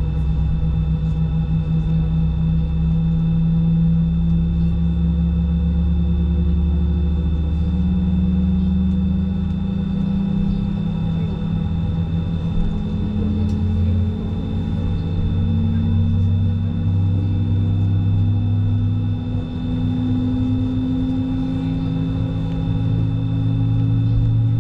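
Cabin noise inside an Airbus A320-family jet airliner on the ground: a loud, steady drone of engine and air-system hum made of several steady tones, one of which slowly rises in pitch.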